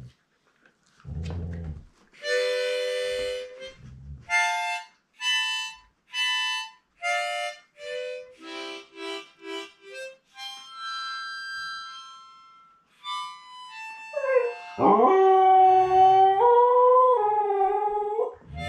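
Harmonica played in short chords and single held notes, then a Siberian husky howling along with it near the end: one long, loud, wavering howl.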